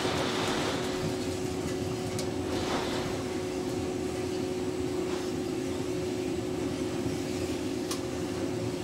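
Giesen coffee roaster's cooling tray running just after the drop: the cooling fan drawing air through the fresh-roasted beans while the stirring arms sweep them round, a steady hum with a constant tone and the beans rustling.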